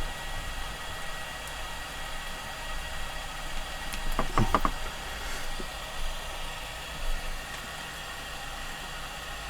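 Steady background hiss and hum with a thin, high steady tone, and a few faint clicks about four seconds in.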